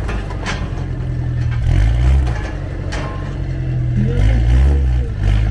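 Off-road vehicle engine revving in repeated surges, its pitch climbing and falling back every couple of seconds, with a couple of short sharp clacks.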